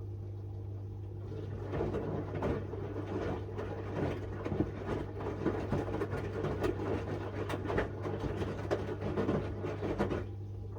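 Miele W1 front-loading washing machine tumbling a small load of shirts: the drum turns for about nine seconds with laundry falling and water sloshing, over a steady hum. It starts about a second in and stops near the end.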